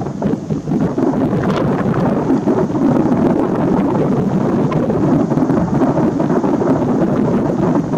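Fireworks in a rapid-fire starmine barrage: many aerial shells bursting in quick succession, their bangs overlapping into a loud, continuous rumble like rolling thunder.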